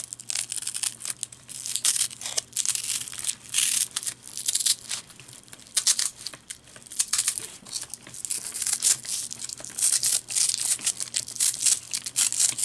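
Velcro strap and nylon webbing rubbing and rasping as hands work them around a plastic MOLLE attachment: a long run of short scratchy rasps in quick succession.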